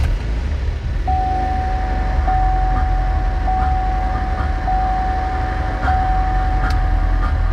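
2009 Pontiac Solstice GXP's turbocharged 2.0-litre four-cylinder catching right at the start, then running at a steady fast idle with the little chuffing on start-up that is normal for its 290-horsepower tune. From about a second in, a steady high tone sounds over it, breaking briefly about once a second.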